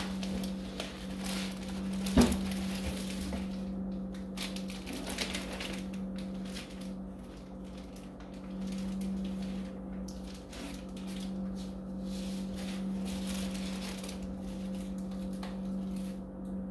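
Plastic bags and packaged lab supplies being handled and rummaged through in a cardboard box: irregular crinkling and clicking, with one sharp knock about two seconds in, over a steady low hum.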